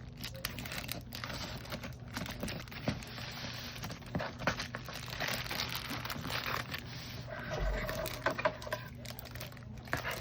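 Packaging being handled and opened: crinkling and rustling of wrapping with many small clicks and taps, over a steady low hum.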